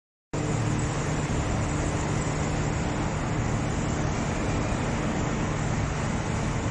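Wood chipper and its feeding conveyor running steadily: a constant mechanical drone with a low hum, starting suddenly just after the beginning.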